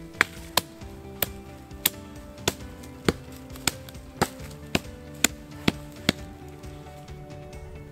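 A blunt axe chopping twigs off sticks: about a dozen sharp wooden strikes, roughly two a second, stopping about six seconds in. Background music plays underneath.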